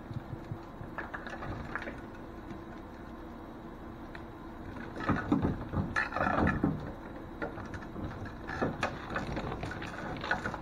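Corrugated plastic RV sewer hose scraping and rustling as it is pushed into a storage tube, with the loudest stretch about five seconds in and more scraping near the end.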